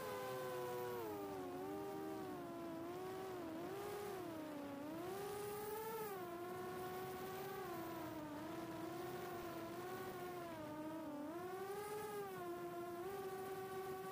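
4-inch FPV quadcopter's HGLRC 1303.5 4500kv brushless motors and propellers whining in flight, the pitch rising and falling again and again with the throttle.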